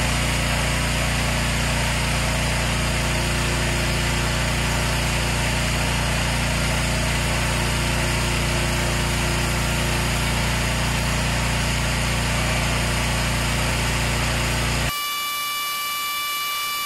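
Pressure washer running with a rotary surface cleaner spraying concrete: a loud, steady rush of water with a constant machine hum. It cuts off suddenly near the end and gives way to music with held notes.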